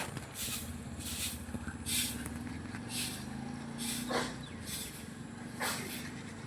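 An engine running steadily with a low hum, while short hisses recur about once a second. Two brief falling calls come through about four and five and a half seconds in.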